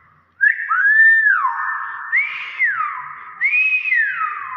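Hill myna whistling: a short note about half a second in, then three loud whistles, each rising and then sliding down in pitch.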